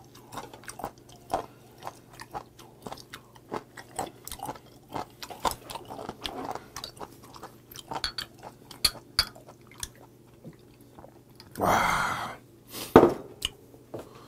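Close-up chewing of raw candlestick whelk meat: many small wet clicks and crunches. Near the end comes a louder rushing sound about a second long, then a sharp knock.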